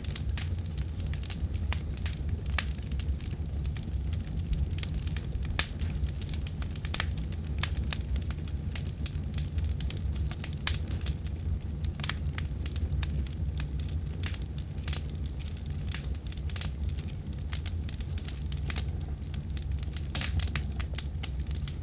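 Wood fire burning in a fireplace: a steady low rumble of flames with frequent irregular crackles and pops.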